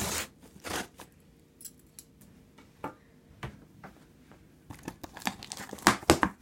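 A mail package being torn open by hand: paper and packaging tearing and crinkling in short, uneven strokes, with a loud rip at the start and a busy flurry near the end.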